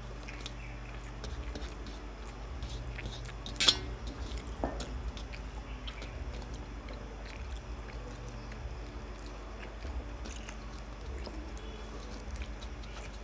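Close-up eating sounds: chewing and small clicks of fingers mixing rice on steel plates, with one sharp clink of steel tableware about three and a half seconds in, over a steady low hum.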